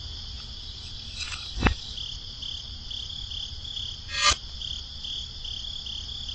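Steady insect-like chirping, high-pitched and pulsing a few times a second, with a single soft thump about a second and a half in and a short rattle about four seconds in.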